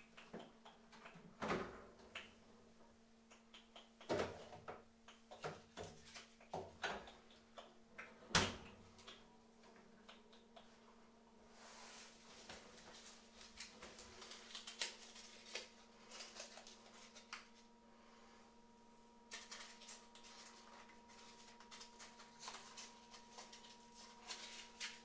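Kitchen handling sounds: scattered knocks, the loudest about a third of the way in, then two longer stretches of faint rattling and rustling as things are moved about. A faint steady hum sits underneath.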